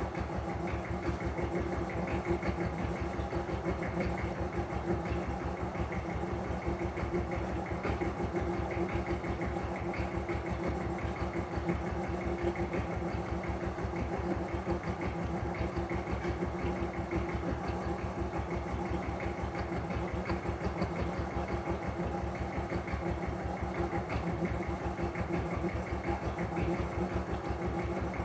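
An engine idling steadily with an even, rapid pulse.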